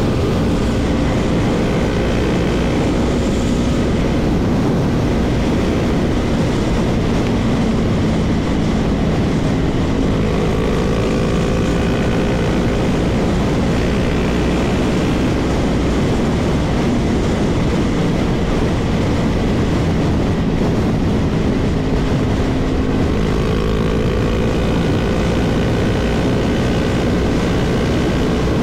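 Motorcycle riding at highway speed: a steady rush of wind and road noise, with a faint hum that drifts slowly up and down in pitch.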